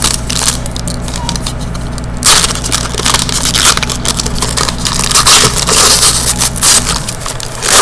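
Foil trading-card pack wrappers crinkling and crumpling, an irregular crackle throughout.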